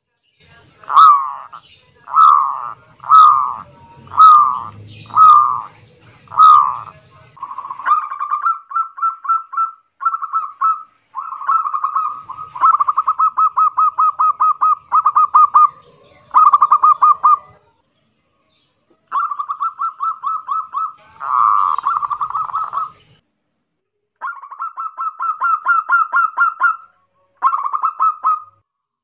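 Zebra dove (perkutut) singing loudly: first about six separate coos a second apart, then long runs of quick staccato cooing notes in phrases with short pauses between them.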